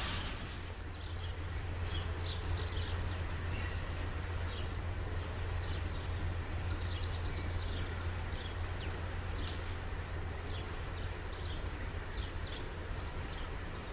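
Steady low rumble of a distant diesel freight train, with birds chirping over it in many short calls.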